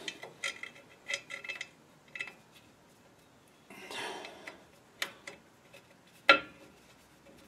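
Light metallic clicks and clinks of brake hardware being handled on a drum-brake backing plate. There is a short rustle about four seconds in, and a single sharp metal knock a little after six seconds is the loudest sound.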